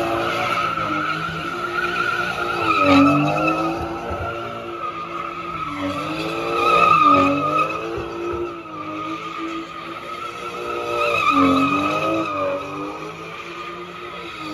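A car doing donuts: its engine held at high revs with a few brief dips while the rear tyres squeal steadily as they spin and slide.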